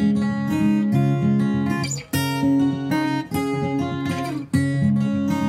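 Background music on acoustic guitar: plucked, strummed chords that change every second or so.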